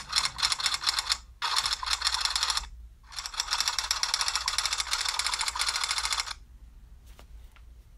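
Typing sound effect: fast keyboard clicking in three runs with short pauses, stopping about six seconds in.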